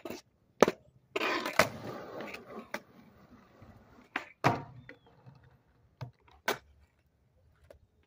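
Skateboard on concrete: a run of sharp wooden clacks as the board's tail and wheels slap down, about seven in all, the loudest about half a second in, with the wheels rolling on the rough concrete for a couple of seconds in between.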